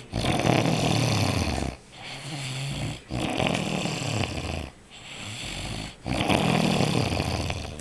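A man snoring in deep sleep: three loud, rough snores about three seconds apart, with a quieter, low humming breath between each.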